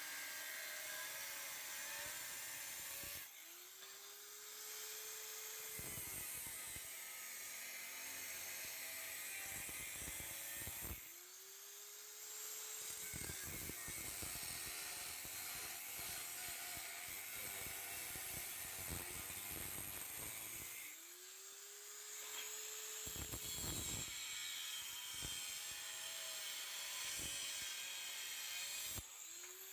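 Power tool, most likely an angle grinder, grinding steel from an old crosscut saw blade to shape a knife blade. It runs as a continuous high-pitched grinding noise that eases off briefly about every eight to ten seconds, then comes back.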